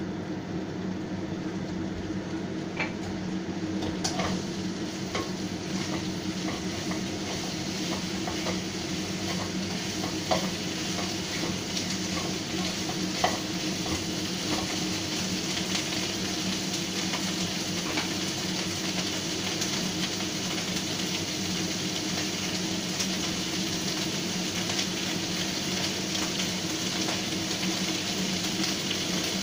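Vegetables and pork sizzling as they stir-fry in a wok over a gas flame, a spatula stirring and tossing them, with a few sharp knocks of the spatula against the pan.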